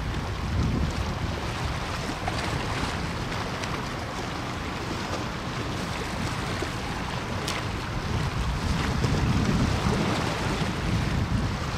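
Wind buffeting the microphone over a steady rush of open water, growing a little louder near the end.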